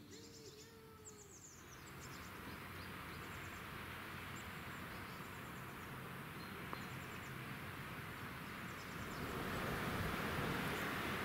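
Small birds singing in short, high, repeated chirping phrases over a steady rushing background noise that grows louder near the end. At the very start comes a brief two-part mewing call.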